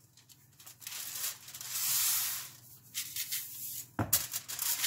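Aluminium foil crinkling and rustling as a hand rubs salt into a large whole fish lying on it, with a sharp tap about four seconds in.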